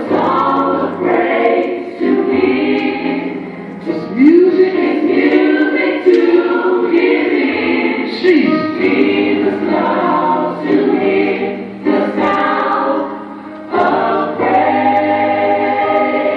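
Gospel choir singing, with steady low bass notes underneath.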